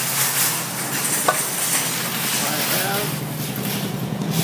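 Steady outdoor background noise: a rustling hiss over a low hum, with one brief sharp click a little over a second in.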